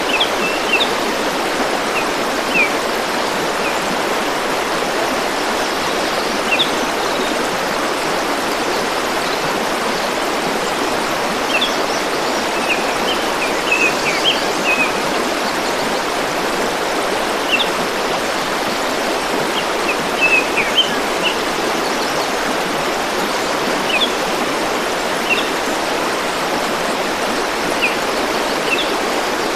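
Steady rushing of a flowing forest stream, with short high bird chirps scattered over it, coming in small clusters about halfway through and again about two-thirds through.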